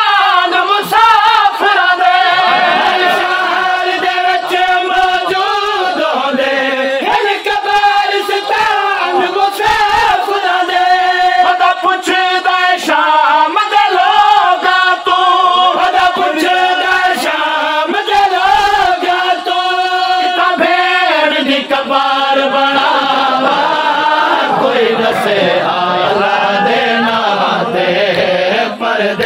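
A group of men chanting a noha, a Shia mourning lament, loud and continuous, several voices singing together.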